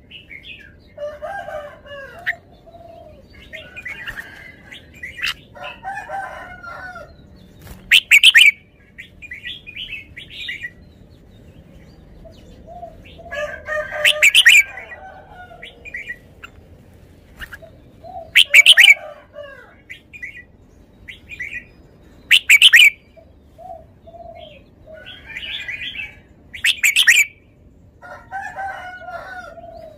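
Red-whiskered bulbul singing: five loud, short phrases a few seconds apart, with softer bird calls between them.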